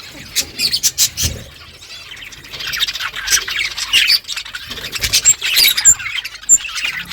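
A flock of budgerigars chirping and chattering, many short calls and squawks overlapping, growing busier and louder partway through.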